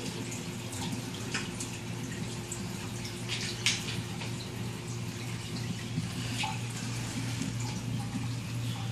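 Reef aquarium running: water trickling and splashing over a steady low pump hum, with a few short, sharper splashes, the loudest about a third of the way in.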